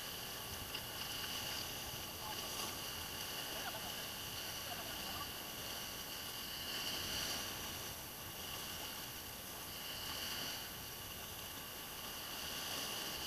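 Faint, gentle sea waves washing over rocks at the water's edge, swelling and fading every few seconds.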